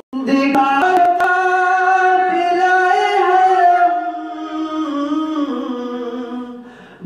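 A man singing a naat unaccompanied, holding one long melismatic note without words that steps and slides down in pitch in its last couple of seconds.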